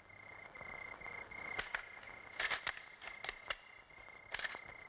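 Quiet night ambience: a steady, high cricket trill, with a few short taps.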